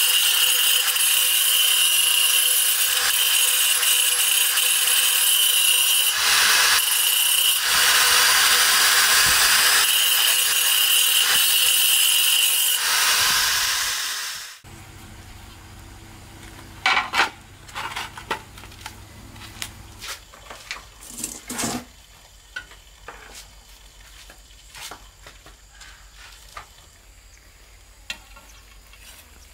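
Handheld angle grinder with a thin cutting disc grinding the edge of a ceramic floor tile: a loud, steady high whine over gritty noise, with brief changes as the disc is pressed and eased. About fourteen seconds in it spins down, and what follows is much quieter, with scattered sharp clicks and knocks.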